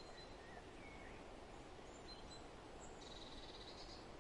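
Faint outdoor ambience: a steady low hiss with a few thin, high bird chirps scattered through it, and a short buzzy trill about three seconds in.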